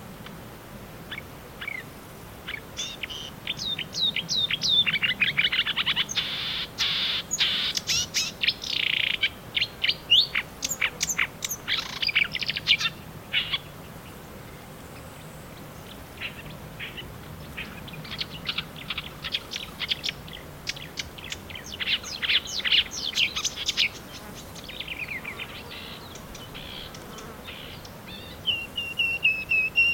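Marsh warbler singing: fast runs of varied, chattering and whistled notes in two long bouts with a pause of a few seconds between them.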